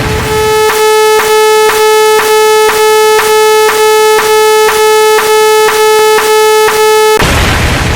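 Synthesized electronic beep tone, steady and buzzy with many overtones, broken by brief gaps about twice a second, one beep per step of the count. A loud burst of noise is fading away at the start, and another burst starts near the end.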